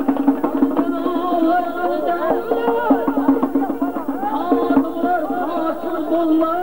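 Live folk band music: an accordion holding steady chords under the ornamented melody of a plucked long-necked lute, with a steady drum beat.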